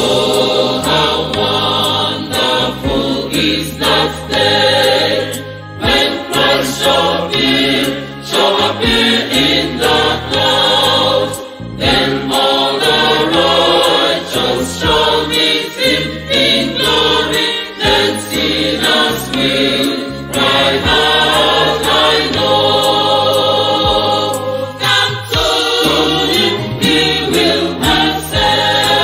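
Church choir singing a gospel hymn together in several voices, continuously, with steady low notes underneath.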